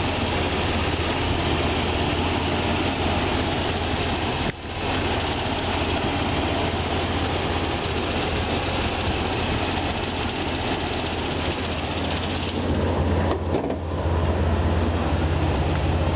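1996 Dodge Dakota pickup's engine idling steadily, with no revving; it gets a little louder near the end.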